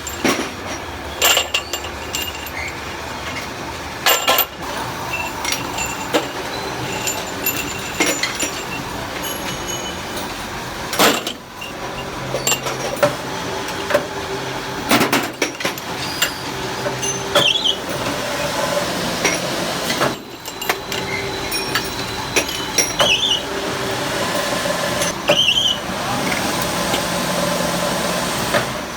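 Metal parts clinking and knocking at irregular intervals over steady workshop noise.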